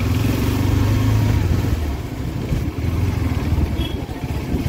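KTM RC 390's single-cylinder engine running under way, steady for about two seconds, then quieter and more uneven.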